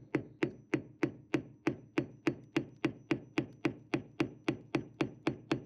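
Hammer tapping the handle of a screwdriver set against the edge of a seized screw's slot, in a steady run of even taps about three and a half a second. The blows are turning a stuck screw that holds a raw water strainer to the hull.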